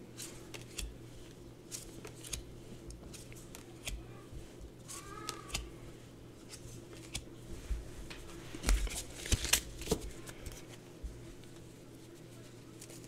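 Tarot cards being handled: cards flipped, slid and set down on a cloth-covered table in a run of soft taps and clicks, loudest about nine to ten seconds in.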